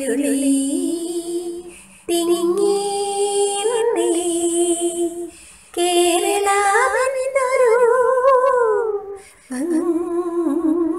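A woman singing a Malayalam children's poem in a slow, lullaby-like tune, in sung phrases with long held notes and short breaths between them.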